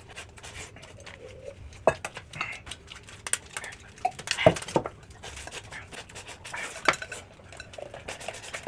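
Eating utensils clinking and knocking against bowls and dishes: an irregular string of small sharp clicks, with a few louder knocks.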